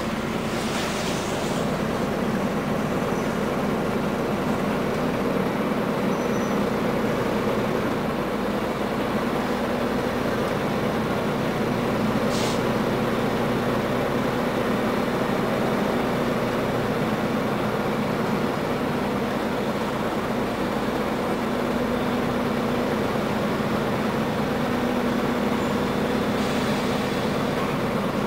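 Cabin sound inside a Scania N94UA articulated city bus: the diesel engine runs with a steady drone while the bus rolls slowly. A short hiss comes about a second in and again near the end, and a single sharp click about twelve seconds in.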